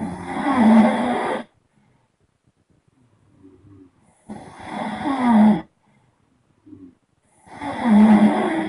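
A person snoring loudly: three long snores, each about a second and a half, coming roughly every four seconds, with faint sounds between them.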